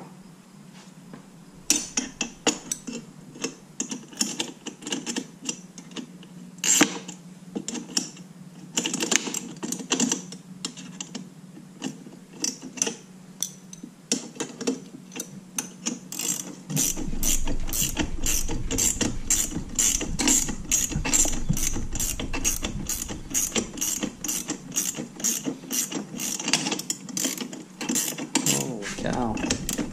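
Ratchet wrench clicking as a Nyloc nut is run down on a bolt: scattered clicks at first, then from about halfway a steady run of quick clicks, several a second, that stops near the end.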